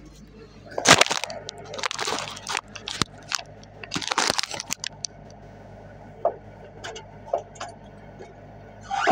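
Phone microphone scraped and knocked by the hand holding it, giving several loud crackling rubs over the first half and a few softer clicks later. Under it the excavator's engine runs with a steady low hum.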